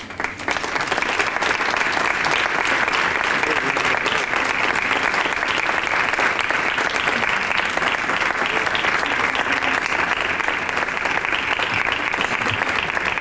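Audience applauding, starting at once and keeping up a steady level throughout.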